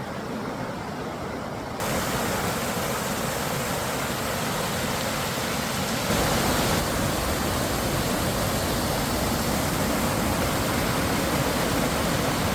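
Amicalola Falls, a large waterfall, rushing as a steady wash of falling water. It grows louder about two seconds in and again about six seconds in.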